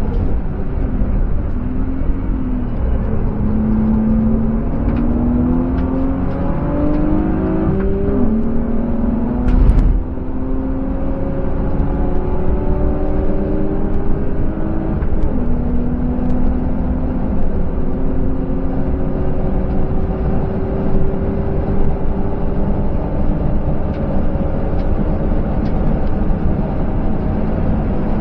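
A BMW E36's 2.5-litre M50B25TU inline-six, heard from inside the cabin, pulling hard under acceleration with road and wind noise. Its pitch climbs, drops sharply at an upshift about eight seconds in, climbs again, and drops at a second upshift about fifteen seconds in. A loud thump comes about ten seconds in.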